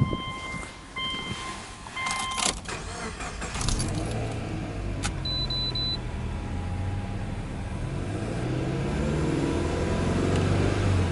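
A car's repeating warning chime, then the key is turned and the starter cranks briefly before the Subaru Legacy 2.0GT's turbocharged EJ20 flat-four catches, from cold. It settles into a fast idle, and near the end it is revved lightly toward 3,000 rpm.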